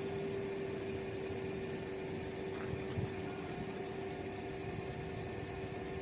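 Two coupled Class 172 diesel multiple units running as they depart the platform: a steady engine and transmission hum holding one pitch, with a second, higher tone joining about a second and a half in.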